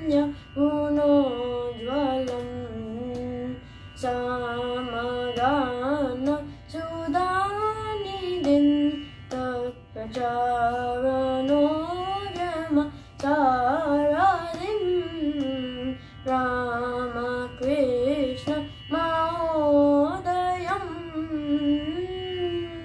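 A boy singing a Carnatic kriti in raga Kharaharapriya, in phrases of held notes with fast oscillating ornaments (gamakas) and slides, over a faint steady drone.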